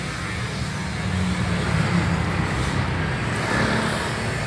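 Road traffic: a motor vehicle's engine running close by, a steady low rumble that grows a little louder about a second in.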